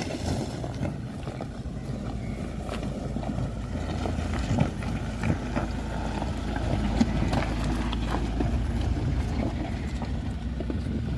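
A Mahindra Scorpio's engine running low as the SUV crawls over loose river stones, its tyres crunching on the rocks with scattered clicks and knocks, a few sharper knocks in the middle.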